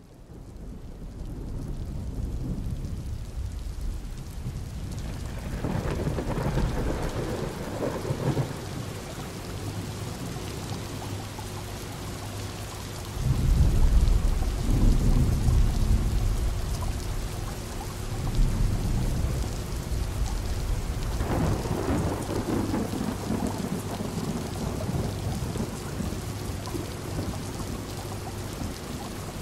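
Steady rain against windows, fading in at the start, with rolls of thunder. The loudest roll comes about 13 seconds in, with others around 6 and 21 seconds in, over a faint steady low hum.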